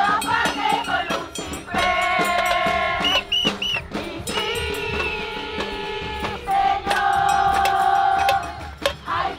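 Many voices singing a protest chant together, holding long notes, over hand drums and rattling, tambourine-like percussion.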